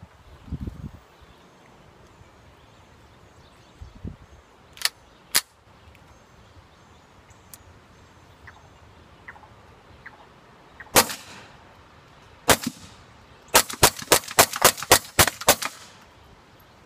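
Suppressed AR-15 rifle shots: two single shots about half a second apart, two more a second and a half apart, then a quick string of about ten shots at some four a second.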